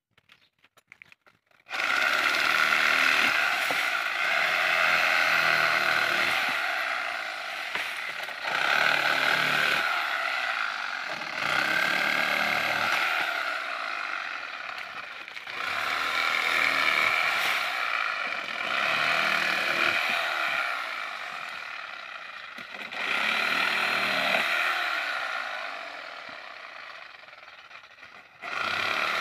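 Corded electric saw cutting through dry date palm frond bases. The motor starts about two seconds in, then runs in repeated spells of a few seconds each, swelling as the blade bites and easing between cuts.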